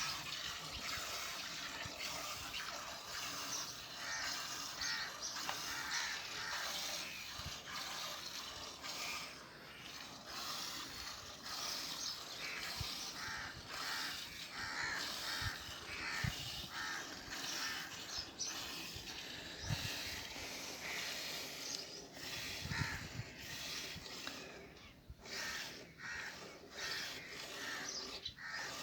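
Buffalo being milked by hand: streams of milk squirting in a steady rhythm of short hissing spurts, with an occasional low thump.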